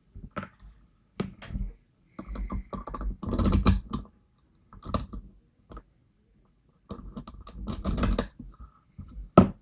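Small hard objects being handled: clusters of sharp clicks and rattles, densest about two to four seconds in and again about seven to eight seconds in, with one loud sharp click near the end.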